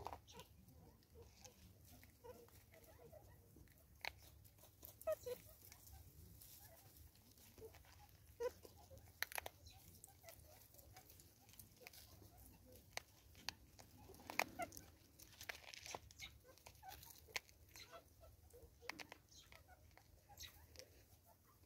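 Faint scattered crunches and taps as a vervet monkey picks seed out of a plastic bottle feeder and eats it, with a few faint clucking calls.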